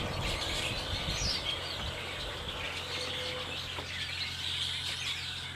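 A flock of red-winged blackbirds calling from the trees: many short, overlapping high chirps and whistles.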